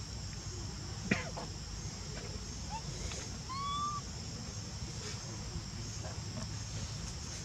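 Steady high-pitched buzz of insects in the background, with a few short calls over it: a sharp falling squeak about a second in, and a longer whistled call near the middle.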